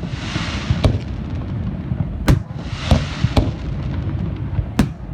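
Aerial fireworks: about four sharp bangs from bursting shells, two spells of hissing crackle, and a constant low rumble beneath.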